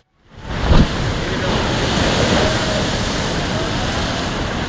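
Ocean surf breaking on the shore with wind on the microphone, a steady rushing noise. A loud thump about a second in.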